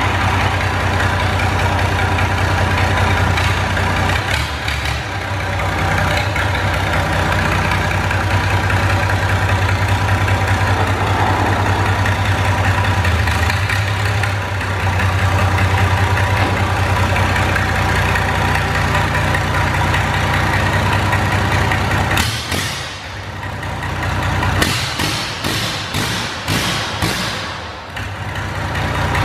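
Old diesel engine idling steadily. A few seconds before the end the sound changes, with a dip and then a run of short sharp noises.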